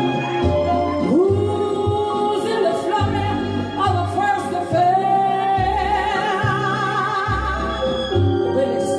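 A woman singing into a microphone over a backing track, holding long notes, one of them wavering with vibrato in the second half, with bass notes underneath.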